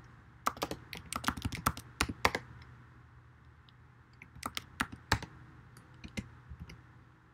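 Computer keyboard typing: a quick run of keystrokes, a pause of about two seconds, then a second short run and a few last single keystrokes.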